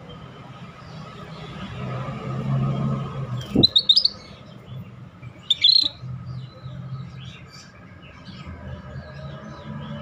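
Scaly-breasted bulbul (cucak bersisik) calling: two short bursts of rapid, high chattering notes about two seconds apart, near the middle, with fainter chirps between. A steady low hum runs underneath.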